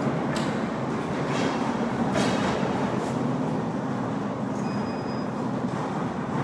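Flat platform cart rolling over a concrete floor: a steady rumble from its casters, with a few rattling clicks in the first two seconds.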